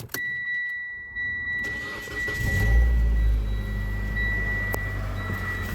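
A steady high electronic beep, then about two seconds in the Mitsubishi Lancer X's four-cylinder engine cranks, catches on a cold start and settles to idle. Cold, this engine knocks, which the owner traces to play in the exhaust cam phaser.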